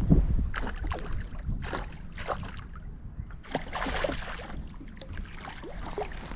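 Water splashing and lapping in a string of short, irregular splashes and drips, over a low rumble of wind on the microphone.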